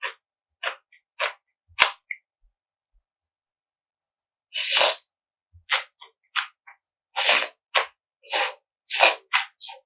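Close-miked eating sounds of spicy mixed noodles: short wet chewing smacks about twice a second, a pause, then a run of loud, sharp slurps with smacks between them.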